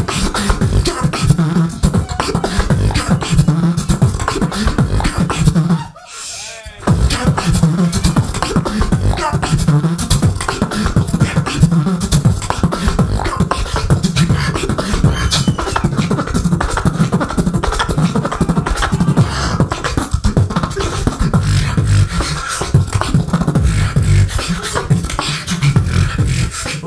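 Beatboxer performing into a handheld microphone, amplified: a fast, steady beat of vocal drum sounds over deep bass, broken about six seconds in by a brief quieter wavering pitched sound.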